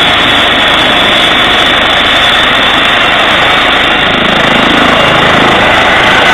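Eurocopter EC135 trauma helicopter running on the ground with its main rotor turning: a loud, steady rush of turbine and rotor noise with a thin, high turbine whine on top, growing slightly louder in the last couple of seconds.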